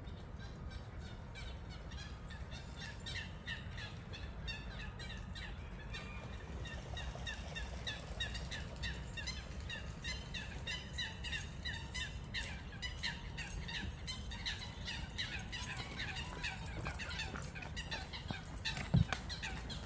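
Birds chirping in quick, repeated short notes over a steady low background rumble, with a single thump near the end.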